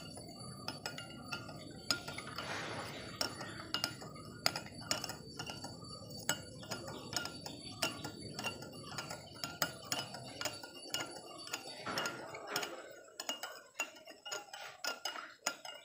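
Metal teaspoon stirring a milky lye and coconut-oil soap mixture in a small glass bowl, clinking and scraping against the glass in quick, irregular taps.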